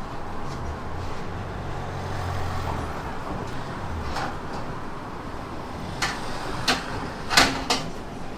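Street-stall background noise with a low hum for the first few seconds, then four sharp clacks close together near the end, the third the loudest.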